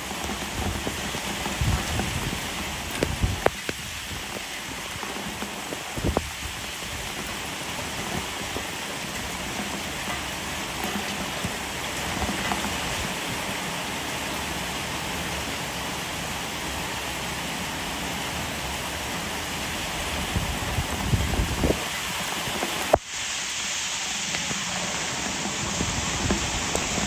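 Heavy rain falling steadily on a concrete yard and standing water, with a few sharper, louder drops landing close by. About 23 seconds in the rain turns brighter and hissier.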